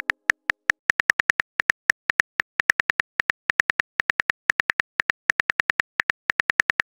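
Phone on-screen keyboard key-click sound, one short click per letter as a text message is typed out, about six clicks a second with small pauses between words.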